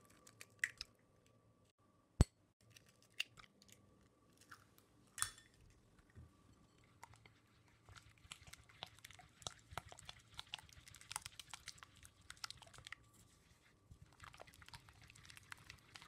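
Silicone spatula stirring a wet butter, egg and vanilla mixture in a glass bowl: soft wet mixing with scattered clicks of the spatula against the glass, getting busier about halfway through.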